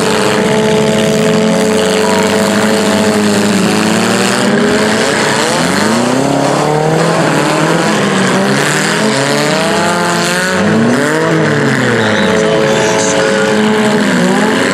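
Several demolition derby cars' engines running and revving at once, their pitches rising and falling and crossing one another over a steady haze of noise.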